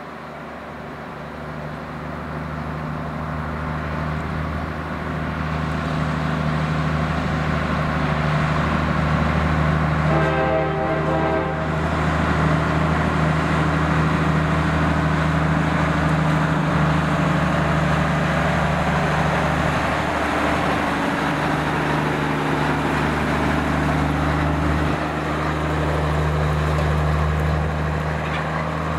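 Diesel engine of a vintage Mack prime mover running under power as the truck approaches, growing louder over the first few seconds. About ten seconds in comes one air-horn blast of about a second and a half.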